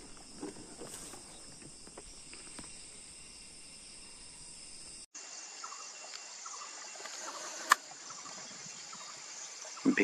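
Steady high-pitched insect chorus of crickets or cicadas chirring. The chorus changes abruptly about halfway through, and there is a single sharp click near the end.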